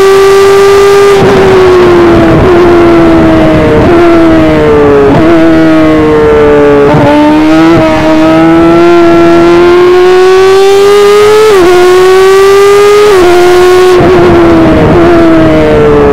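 Onboard sound of an F1000 formula car's 1000 cc motorcycle engine at racing speed, heard loud and close. The engine note falls in steps with several short jumps in revs through the first half, then climbs steadily and drops twice in quick shifts before falling again near the end.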